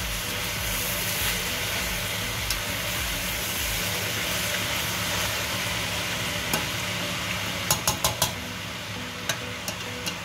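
White cabbage sizzling steadily as it fries and browns in a stainless steel pot while being stirred with a plastic spoon. A quick run of sharp clicks about eight seconds in, and a few more near the end, as the spoon knocks against the pot.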